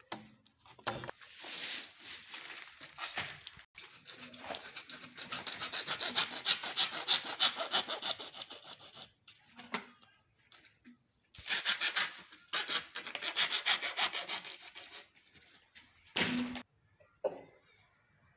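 Hand saw cutting PVC pipe: rapid back-and-forth strokes in two bouts, with a pause of about two seconds between them.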